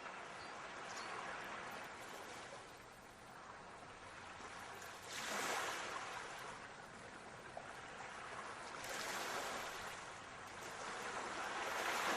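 Sea waves washing onto a shore, with three swells of surf a few seconds apart, the last one the loudest.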